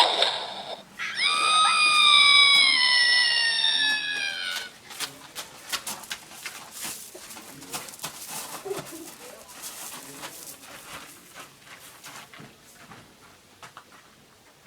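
A person's voice making a long, high, animal-like squeal as a mouth sound effect, slowly falling in pitch for about three and a half seconds, after a short sharp burst. Then scattered quiet clicks and rustles.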